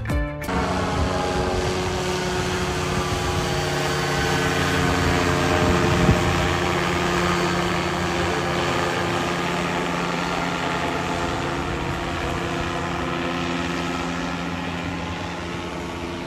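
A steady engine drone with several held pitches. It grows louder to a peak about six seconds in, then slowly fades.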